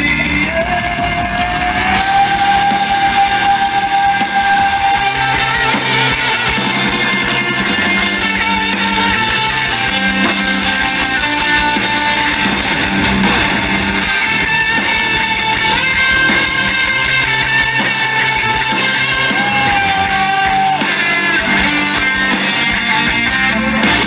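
Live hard rock band playing loudly: electric guitar, bass guitar and drums, with long held notes over the band.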